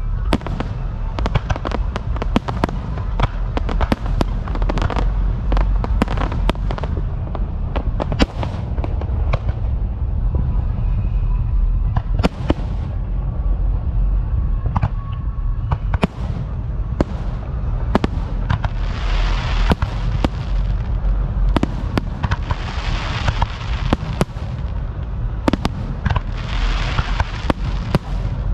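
Fireworks going off in quick succession: many sharp bangs and cracks over a steady low rumble, with stretches of crackling about two-thirds of the way through and again near the end.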